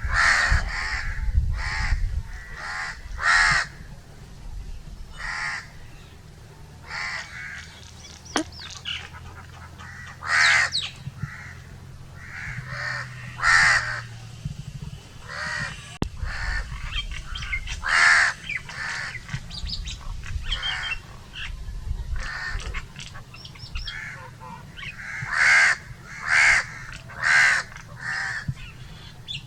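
Crows cawing over and over, short harsh calls coming irregularly, several louder ones standing out, over a steady low rumble.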